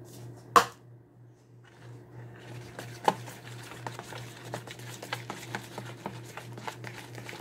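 Sticky slime mixture of glue, shaving cream and activator being stirred fast in a plastic bowl with a plastic knife, a rapid run of wet clicks and smacks from about two and a half seconds in. A sharp tap about half a second in, and a low steady hum underneath.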